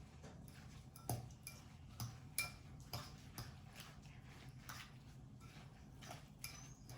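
A fork clicking and tapping against a mixing bowl as shredded zucchini batter is stirred: faint, irregular clicks, a few sharper ones about one to three seconds in.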